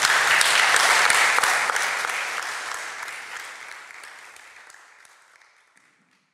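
Audience applauding, clapping that dies away gradually over several seconds.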